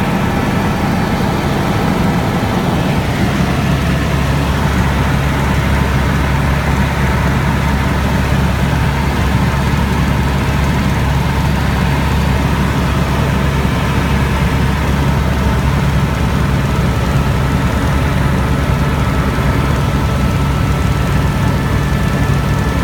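Helicopter in flight heard from inside the cabin: a steady, loud low drone of rotor and engine with a faint steady whine above it. The low drone grows stronger about three seconds in.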